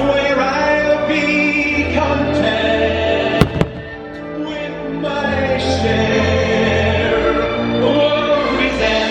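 Fireworks show soundtrack: orchestral music with a choir, played loud over the park speakers, with one sharp firework bang about a third of the way through.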